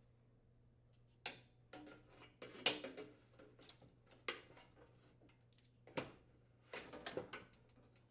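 A series of faint, irregular sharp clicks and light clatters from plastic spark-igniter wire retainers being unclipped and the wires handled under the gas range's lifted cooktop.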